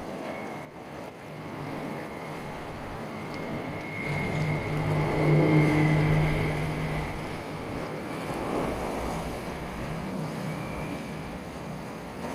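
A boat's engine running, growing louder to a peak about halfway through and then fading as it passes, over steady wind and waves.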